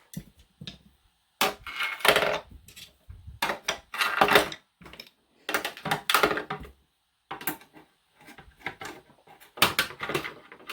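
Metal hand tools clinking and clattering as they are handled and set down in a tool cart, in several short bouts with brief pauses between.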